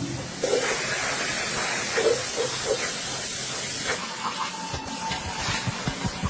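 Water spraying in a steady hiss that starts about half a second in, with a few light knocks. An evenly paced low thudding beat comes in near the end.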